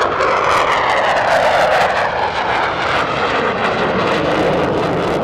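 Fighter jet flying past, a loud jet-engine roar whose pitch falls over the first couple of seconds as it goes by.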